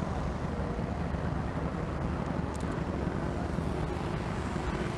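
Truck engine running steadily, a continuous low rumble.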